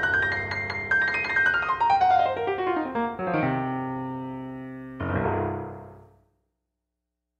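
Solo piano playing the close of a rock-and-roll piece: repeated high chords, a fast run down the keyboard, a held chord, then a final chord struck about five seconds in that rings and dies away.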